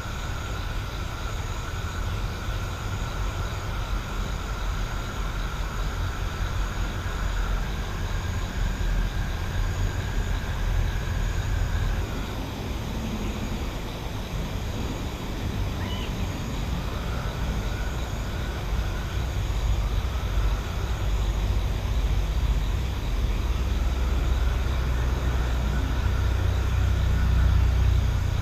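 Rural night ambience with a steady low rumble like distant traffic. Over it runs a faint steady high tone that breaks off about halfway and comes back in pieces, and a fainter, higher line that pulses gently.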